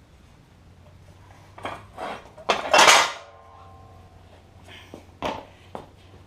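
Loose metal scooter parts clattering and clanking as they are handled and set down. A cluster of knocks comes about two seconds in, the loudest leaving a brief metallic ring, and two lighter clanks follow near the end.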